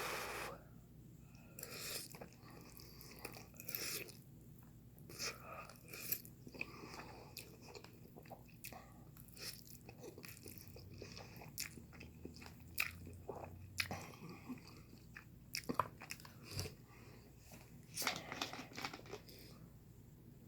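Close-miked mouth sounds of someone eating noodles: chewing, with many short wet clicks and smacks at irregular intervals. A short, loud breathy sound opens the stretch.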